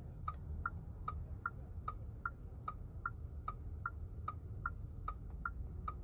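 A car's indicator ticking inside the cabin in an even tick-tock, about two and a half clicks a second with every other click sharper, over a low steady hum.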